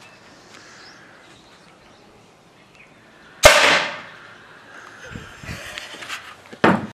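Homemade PVC pneumatic cannon firing once about three and a half seconds in: a sudden loud blast of compressed air released through a sprinkler valve, trailing off over about half a second. A few soft thumps follow, then a sharp knock near the end.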